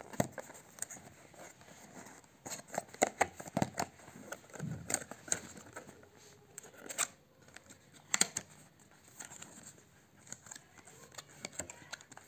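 Small paperboard retail box being opened by hand: the seal on the end flap peeled loose and the flap pried open, giving scattered sharp clicks, scrapes and crinkles of thin cardboard.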